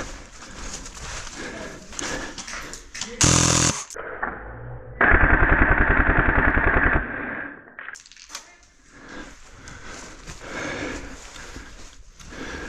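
Well Pro WE13 DSG airsoft electric rifle firing full-auto at a very high rate: a short burst about three seconds in, then a longer burst of about two seconds about five seconds in, each a fast, even rattle of shots.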